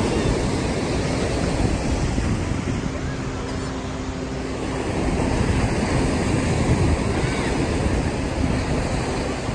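Ocean surf washing onto the beach, a steady rush that swells about halfway through, with wind buffeting the microphone.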